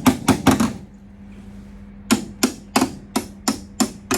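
Hammer blows on thin steel body panel: a quick cluster of sharp strikes, a pause of about a second, then steady strikes at about three a second. The panel's body line is being worked back into shape. A steady low hum runs underneath.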